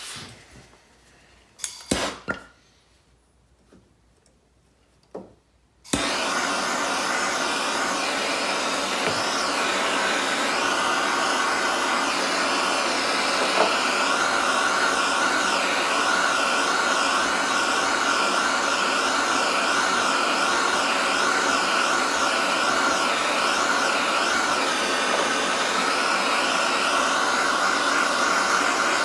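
Handheld blow torch flame, a steady hiss that starts suddenly about six seconds in and holds an even level, played on a seized carburetor body to free its stuck slide. Before it, a few short knocks from handling.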